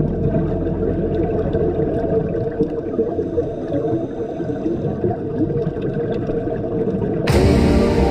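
Muffled underwater ambience on a scuba dive: a dense low rumble with steady humming tones and faint clicks. About seven seconds in it switches abruptly to a steady rain-like hiss.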